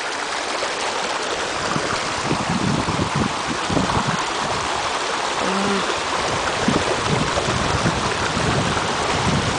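Water rushing and churning steadily along the Diana memorial fountain's textured granite channel, a continuous stream-like sound.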